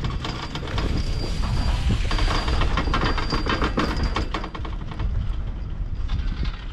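Poma double chairlift running: a rapid mechanical clatter of many quick clicks, loudest in the middle and thinning toward the end, over a low rumble, with a faint steady high whine through the loudest part.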